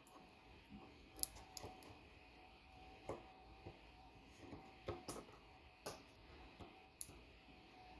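Faint, irregular clicks and taps from handling a laptop hard drive and probing its metal cover and sticker, looking for a hidden screw.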